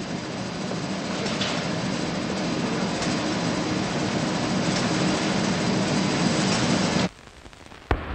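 Steady din of factory machinery in a coffee roastery, a continuous noisy hum that cuts off abruptly about seven seconds in. A single sharp click follows near the end.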